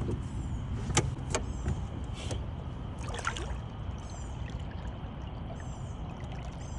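Steady low rumble of wind and water around a small fishing boat, with water trickling and a few light clicks in the first couple of seconds.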